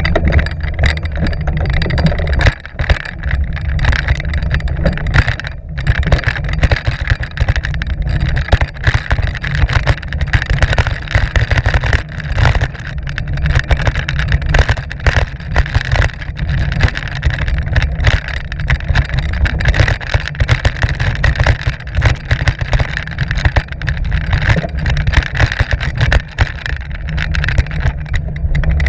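Mountain bike descending a dirt trail, heard from an action camera mounted on the bike: a constant low rumble of wind and ground noise on the microphone, with rapid rattles and knocks from the bike over the rough trail.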